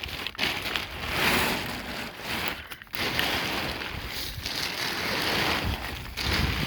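Rushing noise on the microphone that swells and eases in surges, dropping out briefly twice.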